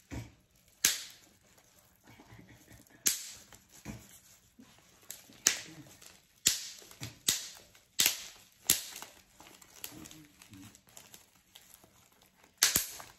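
Bubble wrap being pulled apart and unwrapped by hand: irregular sharp snaps, about a dozen, with soft crinkling between them.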